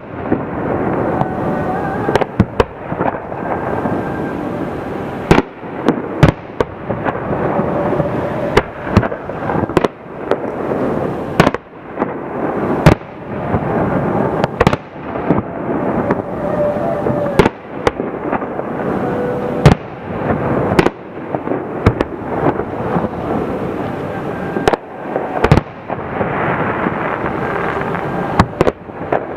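Fireworks display: aerial shells bursting one after another, with sharp bangs every second or so, at times several in quick succession, over a continuous din of bursts and echoes.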